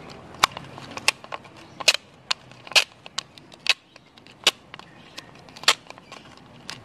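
Duct tape being pulled off its roll and pressed around a thin plastic bottle top, making an irregular run of sharp crackles, clicks and short rips.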